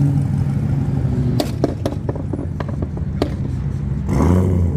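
Car engine running at low speed with a steady deep rumble. Several sharp clicks come in the middle, and there is a brief louder surge near the end.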